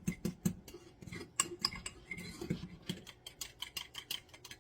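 Fork clinking against a bowl while stirring a thick peanut sauce of PB2 powder, soy sauce and water: a quick, uneven run of clicks.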